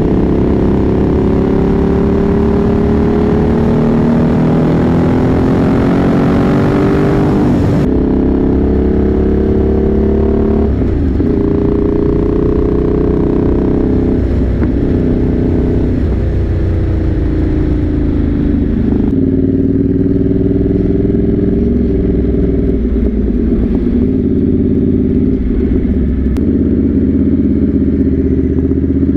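Motorcycle engine running while riding, its pitch climbing under acceleration and dropping back at several gear changes.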